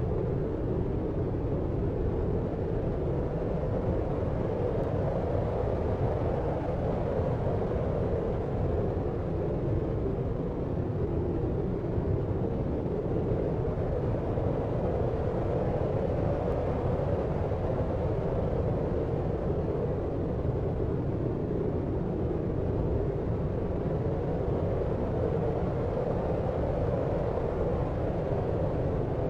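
Steady, deep, muffled noise with no events or changes: a low, even rush with little hiss on top, the kind of deep white (brown) noise played as a sleep aid.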